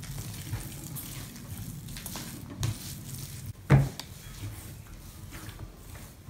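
Bread dough being kneaded by hand on a plastic cutting board: soft, steady squishing and rubbing as the sticky, margarine-enriched dough is pushed and folded. A single sharp knock a little past the middle stands out as the loudest sound.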